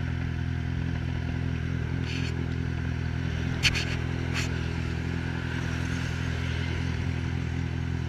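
Yamaha XJ6's inline-four running at steady revs through an Atalla 4-into-1 aftermarket exhaust. Three short clicks come around the middle, the second the loudest.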